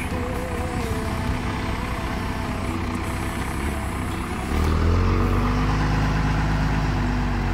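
Pickup truck engine running, getting louder about halfway through, its pitch rising and then holding steady.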